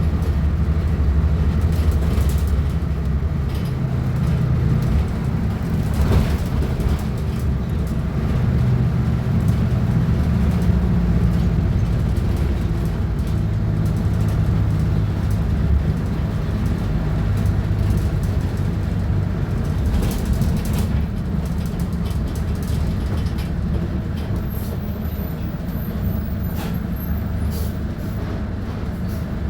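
Volksbus 15.190 OD bus's diesel engine running continuously, its low drone shifting up and down in pitch as engine speed changes. A few short sharp clicks or hisses stand out over it, one about six seconds in and others later.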